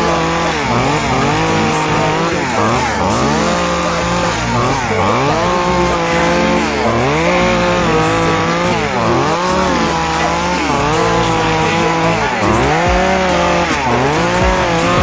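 Two-stroke chainsaw running, its engine revved up and dropping back again and again, the pitch rising and falling about once every second or two.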